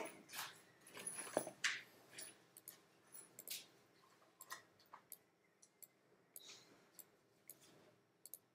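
Faint, irregular clicks of a computer mouse, a few at a time, growing sparser after about four seconds.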